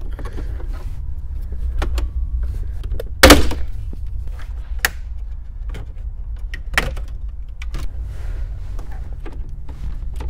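Plastic clips of a 2021 Ford F-150's long dashboard trim strip popping loose as it is pried off with a plastic trim tool: scattered clicks and snaps, the loudest a sharp snap about three seconds in, over a steady low rumble.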